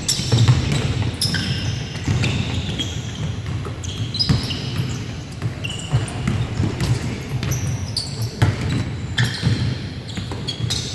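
Basketball game on a hardwood gym floor: sneakers squeaking sharply and a basketball bouncing, echoing in a large hall.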